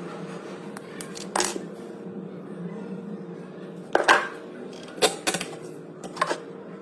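Irregular sharp knocks and clicks, several in quick pairs, from hand work on a cabinet hinge and its particleboard mounting.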